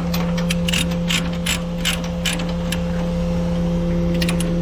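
Ratchet chain binder being cranked to tighten a tie-down chain: a run of sharp ratcheting clicks, about two to three a second, a pause, then a few more clicks near the end, over a steady engine hum.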